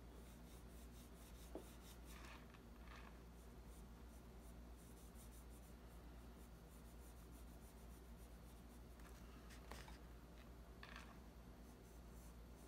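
Faint, soft swishes of a watercolour brush stroking wet paint across paper, a few separate strokes over a low steady hum.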